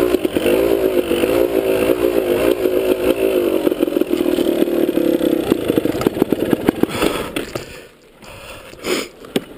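Dirt bike engine running at low revs with a wavering note as the bike rolls down a dirt trail. About six seconds in the running turns uneven and popping, and about eight seconds in the engine sound drops away as the bike comes to a stop.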